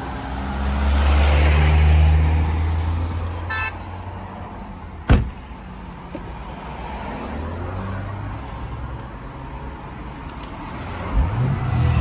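A road vehicle goes by, then a short series of quick electronic beeps. About five seconds in, the Lamborghini Urus's driver door shuts with a single sharp thud, leaving a low road rumble.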